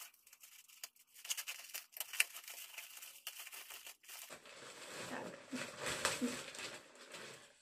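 Plastic courier mailer bag being torn open and crinkled: a quick crackling of tearing plastic for about four seconds, then a fuller rustling as the bag is pulled apart and handled.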